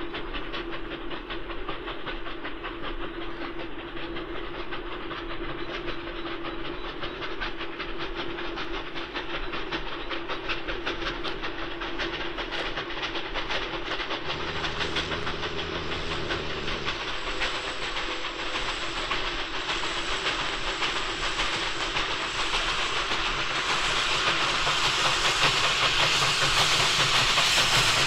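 Steam locomotives hauling a heavy express up a steep gradient: three engines at the head, probably an 0-8-0 tank engine piloting two 2-8-2 tender engines, with another tank engine banking at the rear. The exhaust beats grow steadily louder as the train approaches, wheel flanges squeal and groan on sharp curves, and about halfway through one engine makes a sudden low 'raspberry' noise lasting a couple of seconds.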